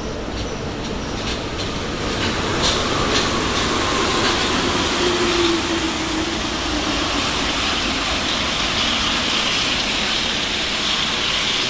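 RATP MP73 rubber-tyred metro train arriving along the platform. A series of sharp clicks comes first as it approaches, then a steady rumble and hiss as the cars roll past, with a brief falling whine about five seconds in.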